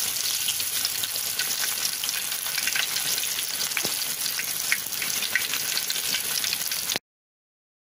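Marinated chicken drumstick deep-frying in hot oil: a steady sizzle with scattered small pops and crackles, which stops abruptly near the end.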